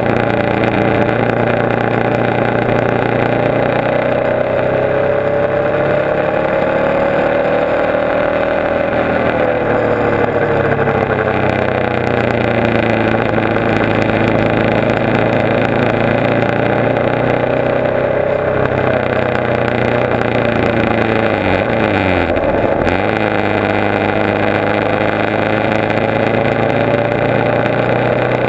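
Motorcycle engine running at road speed with wind rushing over the bike, heard from a camera mounted on it. The engine note rises and falls slowly through the curves, and near the end it drops sharply for a moment and comes back up.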